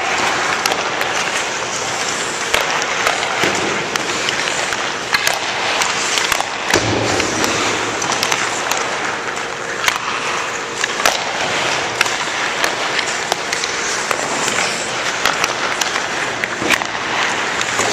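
Hockey skates scraping and carving across the ice, with repeated sharp clacks of sticks striking pucks and pucks hitting the goalie, posts and boards.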